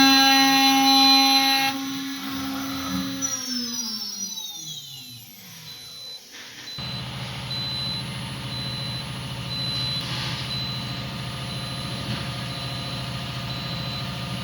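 CNC router spindle running steadily with a high whine, then switched off about two seconds in and spinning down with a falling whine. From about seven seconds in, a steady low hum.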